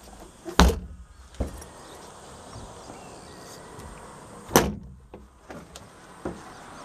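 Fiberglass deck hatch lids on a Yamaha UF30 fishing boat being shut onto their frames: two loud thuds about four seconds apart, the first followed by a lighter knock, with small clicks between.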